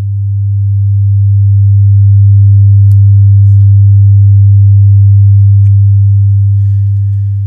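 Two test-oscillator sine tones near 100 Hz, at 100 Hz and 100.1 Hz, sounding together and beating slowly. The single low hum swells to full loudness over about two seconds, holds, then fades toward the end: the waves passing from constructive to destructive interference.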